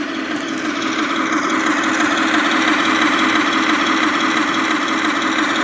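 Radio-controlled model vehicles running with a steady, engine-like idling drone.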